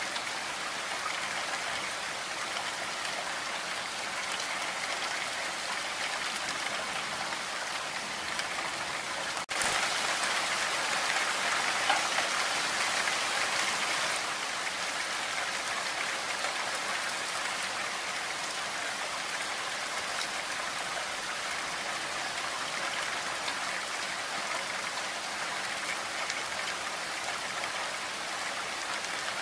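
Heavy rain falling steadily, an even hiss of many drops. About ten seconds in there is a momentary break, and for a few seconds after it the rain is a little louder before settling back.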